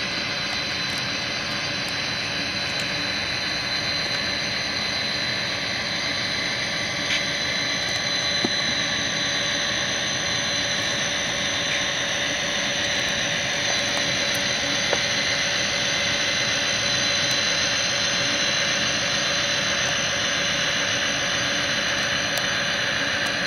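Tsunami sound decoder in an HO-scale SD45-2 model diesel locomotive playing a turbocharged EMD 645 prime mover running steadily, a rumble with a steady high whine over it. It gets a little louder about eight seconds in.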